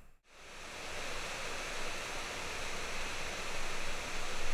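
MacBook Pro 13 (M2) cooling fan running under a combined Cinebench R23 and 3DMark Wild Life load: a steady rushing air noise with faint thin high tones on top. It comes in after a brief dropout at the very start and builds over the first second.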